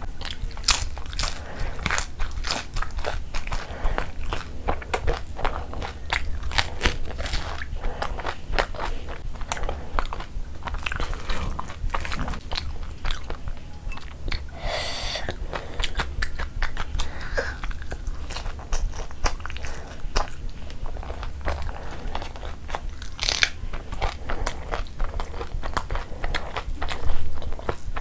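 A person eating fried bread with curry close to the microphone: steady chewing and biting with many small crunchy, crackling clicks.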